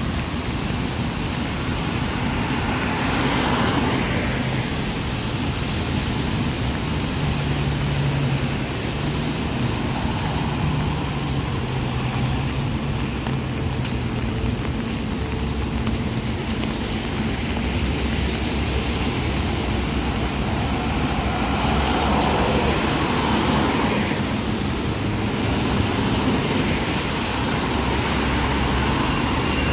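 Road traffic on a rain-soaked road: tyres hiss on wet asphalt and swell as vehicles pass, loudest about three seconds in and again about twenty-two seconds in. A low engine hum runs for several seconds in the middle.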